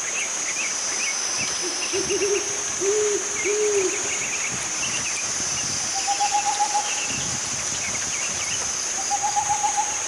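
Owl hooting: a run of low hoots, each rising and falling, about one to two a second through the first four seconds. Later come two short, rapid trills at a higher pitch, one about six seconds in and one near the end, over a steady high insect drone and faint bird chirps.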